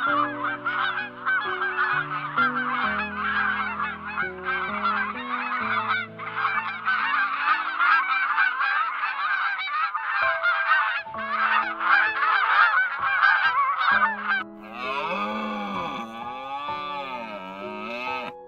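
A large flock of waterfowl honking and gabbling, many calls overlapping, over soft instrumental music. About fourteen seconds in the calls stop and the music carries on alone with bending, sliding notes.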